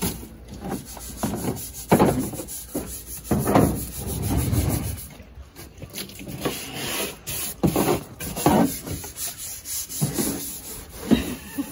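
A hand brush scrubbing a pickup truck's body during a car wash, in irregular back-and-forth rubbing strokes.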